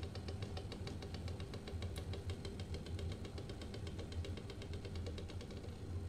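Eggs boiling in a stainless-steel saucepan, rattling against the bottom of the pan in rapid, regular ticks that fade out near the end, over a steady low hum.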